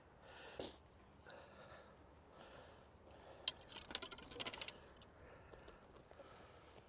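Quiet outdoor background with a single sharp click about three and a half seconds in, then a quick run of light clicks and rustles about a second later.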